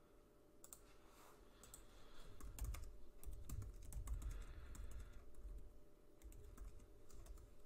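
Typing on a computer keyboard: a quick, uneven run of faint key clicks, with soft low thumps in the middle stretch.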